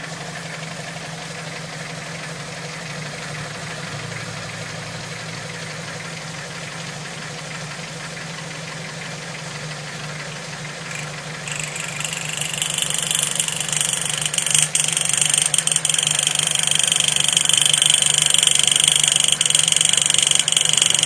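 Restored Toyota Starlet 1300 cc four-cylinder engine idling steadily. About halfway through, a loud, high-pitched steady hiss joins it and keeps on.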